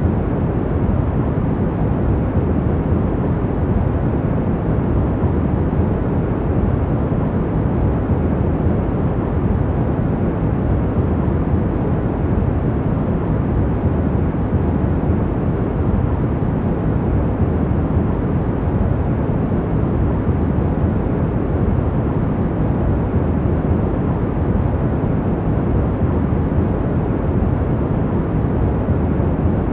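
Steady, unchanging deep rumbling noise of the kind played as a sleep sound, with most of its weight low and only a soft hiss above.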